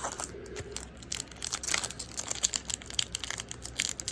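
Foil wrapper of a Magic: The Gathering booster pack crinkling and crackling as it is handled and opened: a dense run of small irregular crackles.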